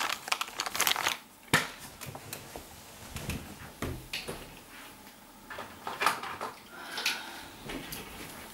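Small objects being rummaged through and handled: irregular clicks, knocks and rustling, busiest in the first second or so, then scattered knocks.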